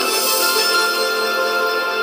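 Instrumental background music of sustained, held chords, thin with no bass.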